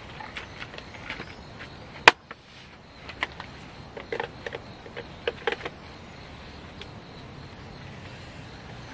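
Scattered small clicks and knocks of objects being handled and set down, with one sharp loud click about two seconds in and a cluster of knocks a little later, over a steady faint hiss.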